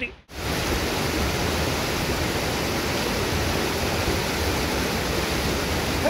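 Steady rushing of the Santa Ana waterfall, water dropping about 40 m from a basalt ledge; it starts abruptly a moment in and holds even.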